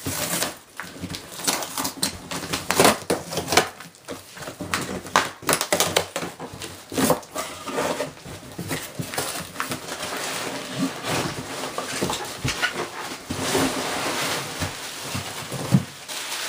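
A parcel being opened by hand: rustling, tearing and repeated knocks and clicks of packaging being handled, with a denser stretch of rustling about two-thirds of the way through.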